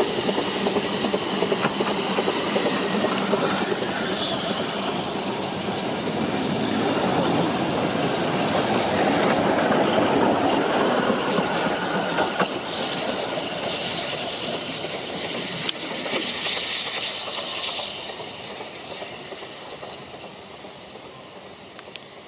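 Narrow-gauge steam locomotive passing close with its train, steam hissing. Then the carriage wheels run by on the rails, and the sound fades away near the end as the train moves off.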